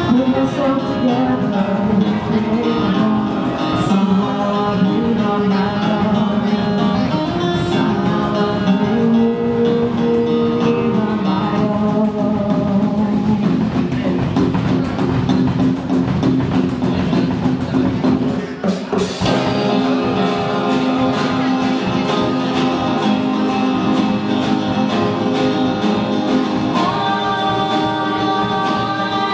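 Live acoustic band performance: a woman singing over a strummed acoustic guitar, with a short dip and a sharp hit about two-thirds of the way through.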